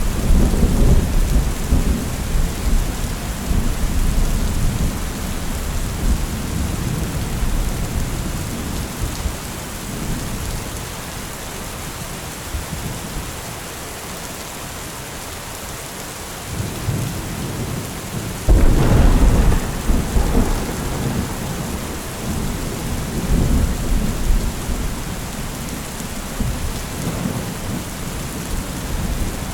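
Steady rain falling, with thunder rumbling twice: one long roll at the start that fades over several seconds, and a sharper crack about two-thirds of the way through that rolls on and dies away.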